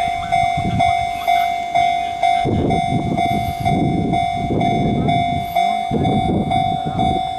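Japanese railway level-crossing warning bell ringing in its steady repeated ding, about two strikes a second. A low rumbling noise swells from about two and a half seconds in and fades near the end.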